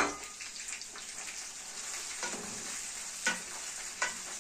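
Sausages sizzling as they fry in ghee and oil with garlic in a non-stick frying pan, with a wooden spatula knocking against the pan three times as they are stirred.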